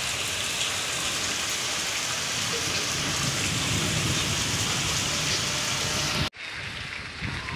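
Heavy rain pouring onto a flooded street, a steady hiss of drops on standing water. It cuts off suddenly about six seconds in, leaving a much quieter sound.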